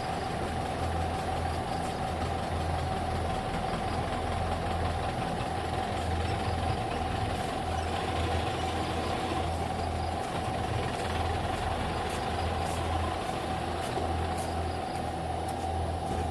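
An engine running steadily at an even speed, with a constant low pulse and a steady tone over it.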